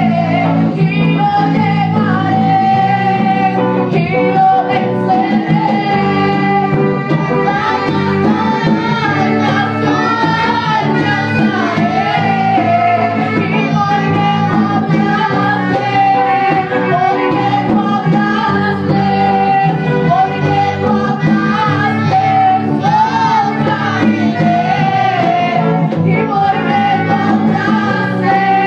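A woman singing into a microphone over musical accompaniment, her voice amplified through the room's sound system.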